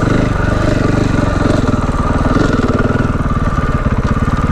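Dirt bike engine running steadily as the bike rolls along slowly.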